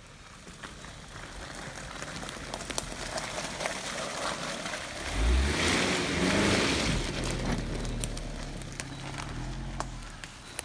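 2005 Suzuki Grand Vitara's J20A 2.0-litre four-cylinder engine and BFGoodrich all-terrain tyres working through a muddy forest track. The sound grows louder as the vehicle drives past close by about five to seven seconds in, then fades as it pulls away, with scattered sharp clicks along the way.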